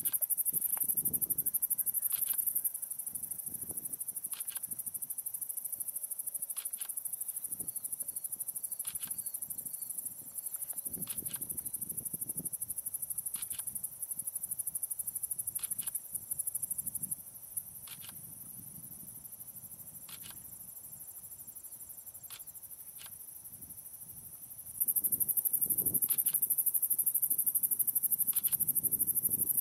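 Crickets and other night insects chirping in a steady high-pitched trill, with short separate chirps every second or two. The trill drops in level about 3 s in and comes back loud near the end.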